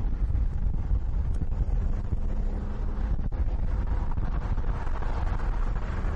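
BMW M1's straight-six engine running at speed, a steady low rumble heard under heavy wind buffeting on the microphone.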